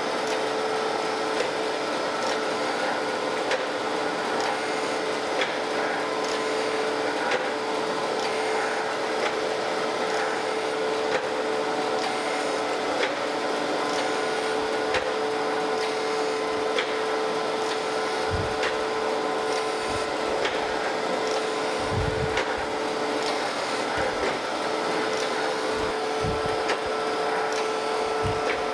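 Landis surface grinder running: a steady spindle hum with the hiss of the grinding wheel passing over camel-back straight-edge castings on a light one-thousandth finishing pass. Faint regular ticks run through it, and a few brief low thumps come in the second half.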